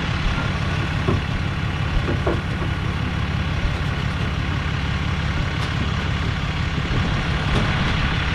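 Pickup truck engine idling steadily with a low, even rumble.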